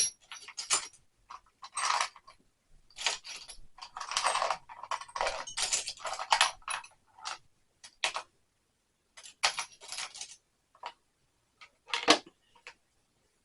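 Small metal hand tools and sockets clinking and clattering as they are set and shuffled into a toolbox, in irregular bursts with short pauses.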